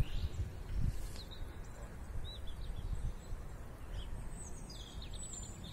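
Outdoor wind noise rumbling on the microphone, with small birds chirping now and then and a quick trill about four seconds in.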